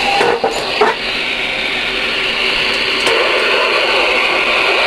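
Steady receiver static from the Ranger RCI-2970N2 radio's speaker, with a few clicks in the first second.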